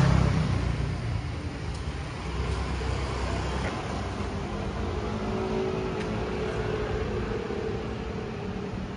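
Street traffic: a motor vehicle passes close at the start, loudest in the first second and fading over the next couple of seconds. A steady hum of road traffic follows.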